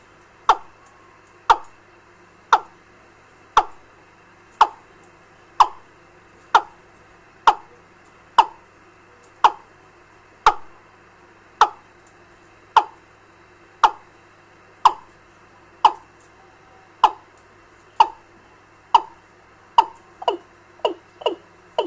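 Recorded fowl-type bird-lure call played through a bird-trapping amplifier and loudspeaker: short, sharp downward-sweeping notes about once a second, quickening to about two or three a second near the end, over a faint steady hiss and hum.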